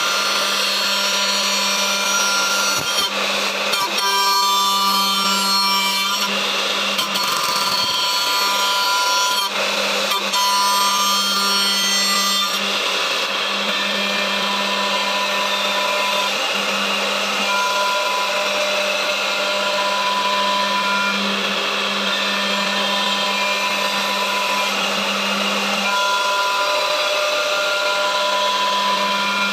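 Wood-turning lathe for chair and table legs running steadily, its motor humming with a high whine while the cutters shape the wood, with harsher cutting noise through the first dozen seconds or so.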